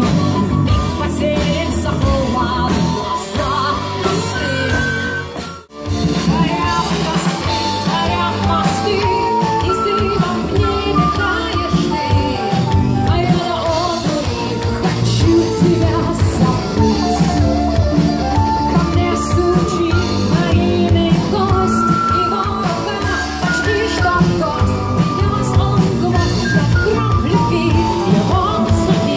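Live rock band playing: electric guitars, bass guitar and drum kit, with a melodic lead line on top. The sound drops out for a split second about six seconds in, then carries on.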